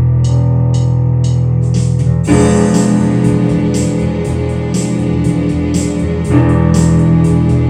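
Instrumental music: sustained keyboard chords with guitar over a steady ticking beat, the harmony changing about two seconds in and again about six seconds in.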